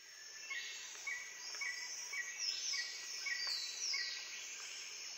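A steady high insect drone, with a bird chirping over and over about twice a second and a few falling high calls.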